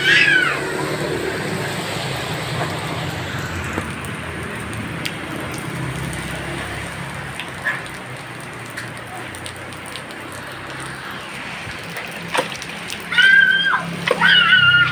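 Steady rain falling on a wet concrete yard and puddles. A child's high-pitched voice cries out at the start and again near the end.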